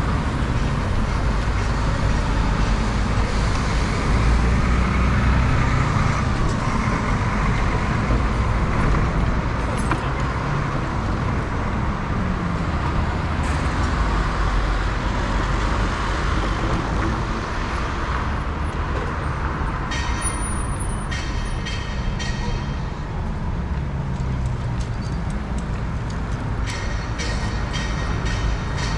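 City street traffic heard from a moving bicycle: a steady wash of road noise and passing vehicles. Runs of quick ticks come about twenty seconds in and again near the end.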